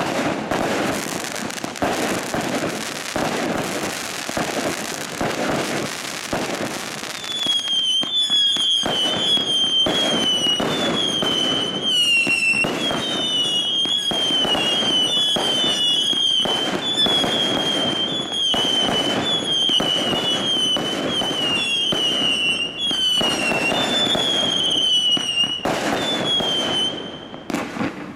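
Screaming Spiders 100-shot 1.3G finale cake firing in rapid succession: a dense run of shots and bursts with crackle, then from about seven seconds in shot after shot of screaming whistles, each a short shriek falling in pitch, overlapping one another between the bangs.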